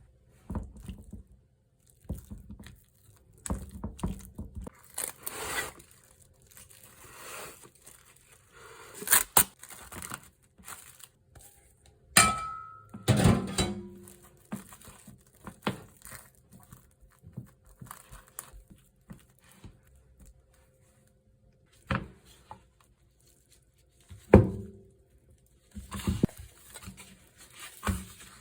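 Kitchen handling sounds: crinkling and tearing of wrapping with scattered knocks of dishes or utensils, loudest about halfway through.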